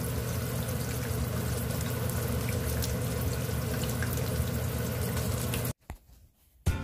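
Oil sizzling and crackling steadily around battered corn fritters frying in a pan, over a steady low hum. It cuts off suddenly about six seconds in.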